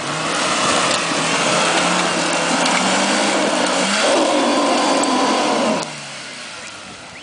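Suzuki Jimny's engine revving hard under load as the 4x4 claws up a steep muddy slope. The pitch climbs slowly, then the revs drop off sharply about six seconds in.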